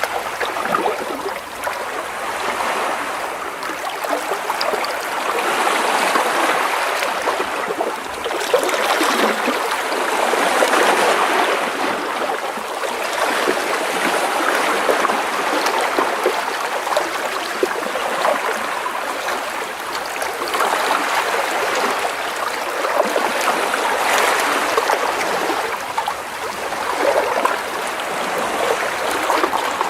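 Small sea waves splashing and washing against rocks close by, with water sloshing and trickling between them. The sound swells and eases every few seconds as each wave comes in.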